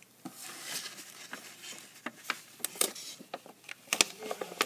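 A sheet of paper rustling as it slides across a tabletop, followed by a run of short, sharp clicks and taps from handling. The loudest tap comes about four seconds in.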